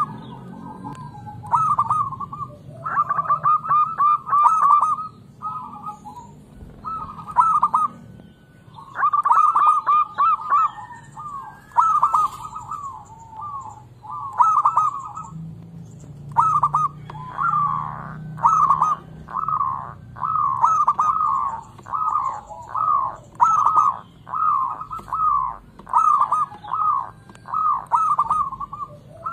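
Zebra dove (perkutut) cooing its song: short, rapid staccato phrases of coos, repeated over and over, coming about once a second in the second half.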